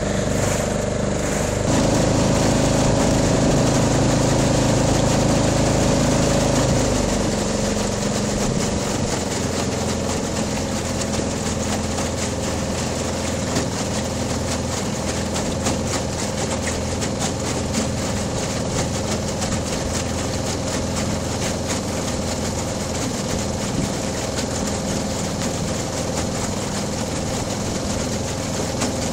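Homemade outboard made from a 5.75 hp Briggs & Stratton lawn mower engine running steadily while pushing an aluminum flat-bottom boat. About seven seconds in it gets quieter and settles into a steadier, lighter note.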